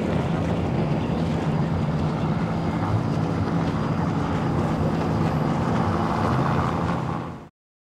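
Personal watercraft's engine running steadily at speed, about 59 mph, with a steady hiss of spray and wind over it. It fades and cuts off near the end.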